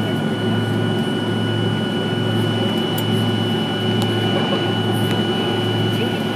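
Steady cabin noise of a jet airliner taxiing: engines at idle and the cabin air system make an even low hum with a faint high whine on top, holding level throughout.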